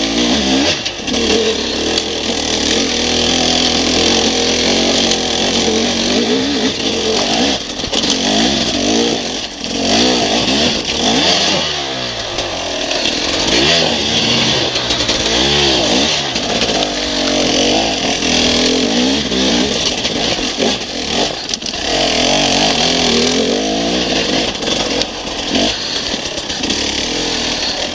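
Enduro dirt bike engine heard close up from on the bike, revving up and down over and over as it works along a rocky singletrack, with sharp knocks and rattles as the bike goes over the stones.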